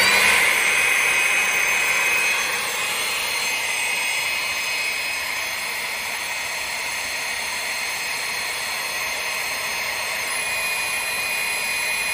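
Electric hydraulic power unit with a 1-1/8 hp, 110-volt motor and pump, running steadily under load as it pushes up the rams of four Power Team 100-ton hydraulic jacks. It has a high whine that fades a couple of seconds in and comes back near the end.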